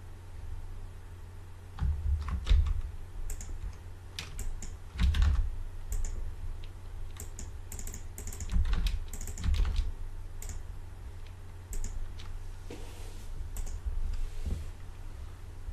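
Computer keyboard keystrokes and mouse clicks, scattered and irregular, some with a dull thud through the desk; the loudest come in clusters about two and a half seconds in and again around five seconds.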